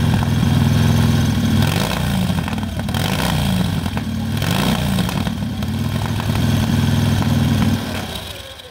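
Special race engine of an antique board-track racing motorcycle running at a warm-up, blipped up and down a few times, then shut off shortly before the end. It is being run to bring it through a heat cycle.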